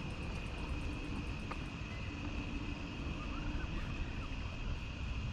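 Steady low rumble of distant city traffic, with a constant high-pitched hum over it throughout.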